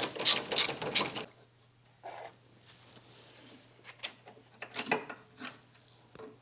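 Ratchet wrench clicking in quick, even strokes as the battery hold-down bracket's nut is loosened, stopping about a second in. Scattered light metal clicks and knocks follow as the bracket is worked free.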